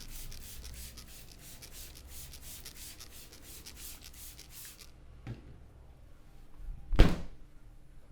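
Hair-cracking scalp rub: fingers rubbing briskly through hair against the scalp in quick rhythmic scratchy strokes, stopping about five seconds in. A faint click follows, then one loud sharp smack near the end.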